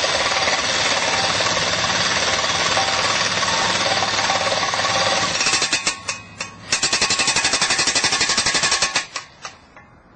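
Corded electric demolition hammer driving an Oz Post steel post spike into the ground, with continuous rapid hammering. It breaks off about five and a half seconds in, hammers again for about two seconds, then stops, with a few short bursts near the end.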